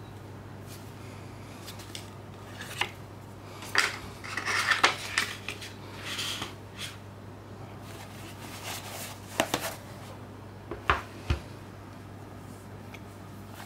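Cardboard and paper Blu-ray packaging handled and set down on a table: scattered taps, clicks and sliding rustles, busiest around four to five seconds in, with a few sharper taps later. A steady low hum runs underneath.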